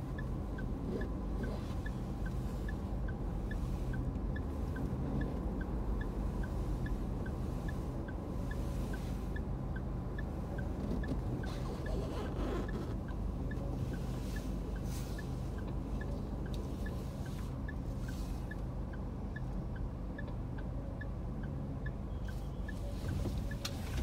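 Car interior while stopped in city traffic: a steady low engine and road hum, with a regular light ticking about two to three times a second. A brief rising sound comes about halfway through.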